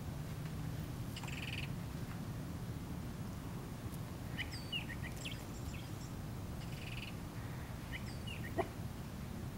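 Faint high chirps and short buzzy trills from small animals, scattered over a steady low hum, with one soft thump near the end.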